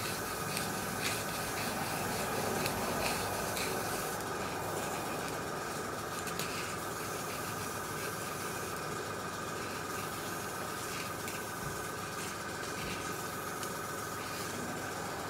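Airbrush spraying paint: a steady hiss of air over the constant whine of its compressor running, with a few faint clicks.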